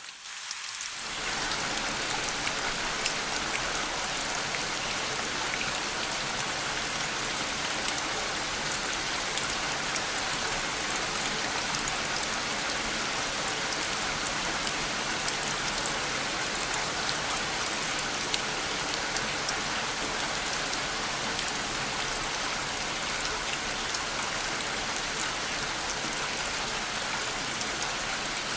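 Steady rain falling: an even hiss scattered with the small taps of individual drops. It swells back in over the first second or so after a brief dip, then holds steady.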